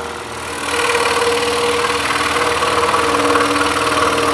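Axminster Trade scroll saw running, its blade cutting through a thick block of timber with a steady hum and rasp. The sound gets louder under a second in and then holds steady.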